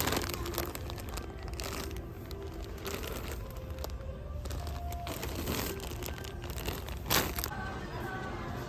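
Intermittent rustling and crinkling, with several short bursts and one sharper one near the end, over a steady low rumble.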